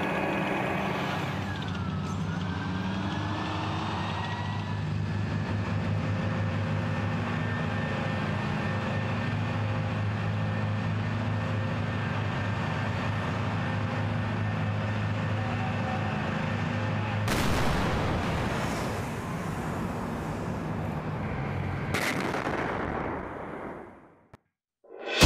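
M109 Paladin self-propelled howitzer's diesel engine running steadily as the tracked vehicle drives, with a whine that falls then rises within the first few seconds. Later come two howitzer shots about five seconds apart, each rumbling away over a few seconds.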